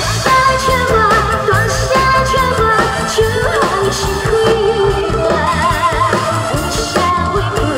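A woman singing a pop song through a microphone and PA, with vibrato on held notes, over amplified backing music with a steady beat.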